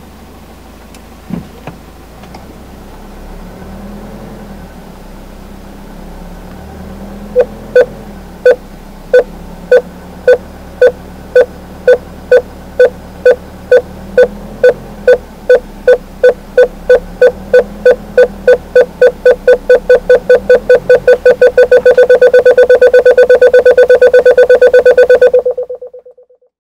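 Jaguar XF rear parking-sensor warning beeping while reversing. Single-pitched beeps start several seconds in at about one and a half a second and quicken steadily until they merge into one continuous tone near the end, the sign of an obstacle close behind the car, then cut off suddenly.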